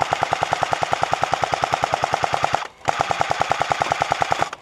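Airsoft SAW-style light machine gun firing on full auto: two long bursts of rapid, evenly spaced shots, with a brief pause between them about two and a half seconds in.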